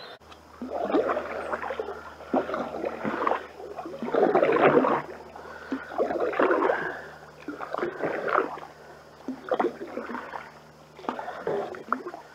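Canoe paddles stroking through the creek water, a splashy swish about every one and a half to two seconds.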